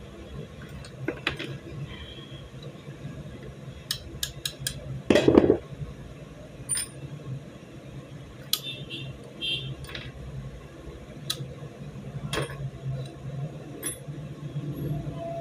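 Small metal pistol parts of a Beretta 92FS clicking and clinking as the pistol is handled and taken apart by hand, with one louder clatter about five seconds in.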